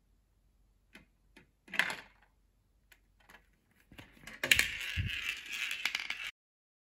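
A small ball clicking and rolling along the plastic tracks inside a Perplexus 3D maze sphere as it is turned in the hands. Past the middle comes a louder stretch of handling noise, plastic rubbing and rattling with a thump, which cuts off suddenly.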